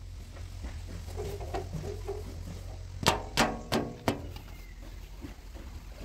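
Four sharp knocks with a short ring, about three a second, on the bodywork of a JCB 3DX backhoe loader as it is wiped down, over a low steady hum.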